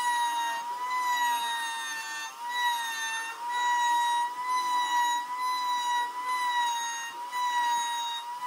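Table-mounted router with a bearing-guided trim bit running at high speed, a steady high whine. The pitch wavers and dips slightly as the bit cuts into the edge of a segmented wooden ring.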